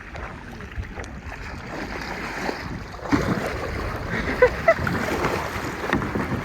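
Water sloshing and splashing with wind buffeting the microphone, a little louder from about halfway, with two brief sharper sounds a little after the middle.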